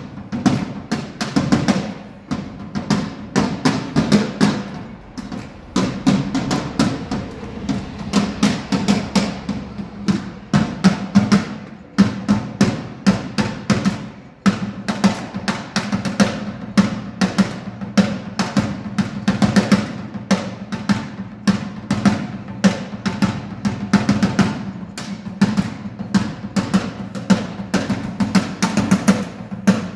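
Drum kit being played in a fast, continuous run of hits, with two short breaks about halfway through.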